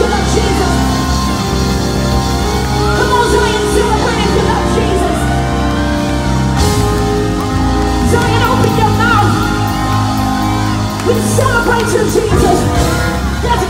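Live gospel band playing, with sustained keyboard chords and bass guitar under a woman's lead vocal sung into a microphone, with winding, ornamented runs.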